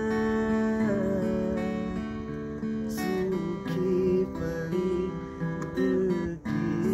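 Acoustic guitar strummed in steady chords, an instrumental passage with a brief break about six and a half seconds in.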